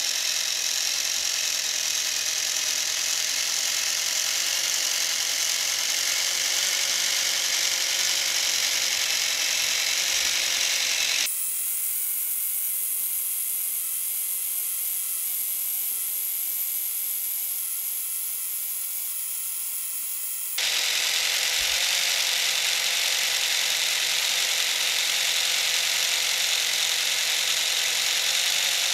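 Small electric motor spinning a 3D-printed plastic gearbox, driveshaft and rear axle of a 1/24-scale RC car conversion: a steady whir with gear whine. In the middle the sound abruptly turns thin and high for about nine seconds, then returns just as suddenly.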